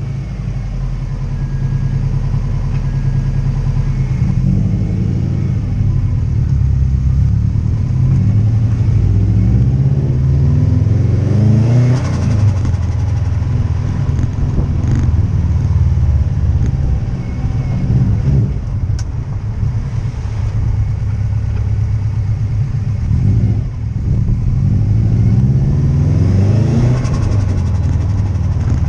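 Subaru Impreza WRX STi Type R's turbocharged flat-four engine revved several times, the revs rising and dropping back. Each time the throttle is released, the turbo flutters (compressor surge).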